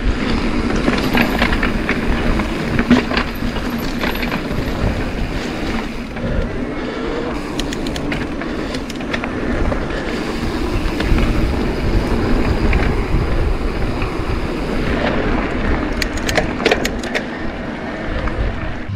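Mountain e-bike rolling fast down a dirt singletrack: steady wind rush over the bike-mounted camera's microphone and tyre noise on dirt, with the rattle and clatter of the bike over bumps, heaviest in a cluster near the end.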